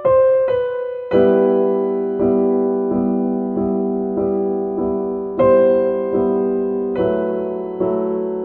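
Background music: soft solo piano playing slow chords and single notes, each struck and left to ring away.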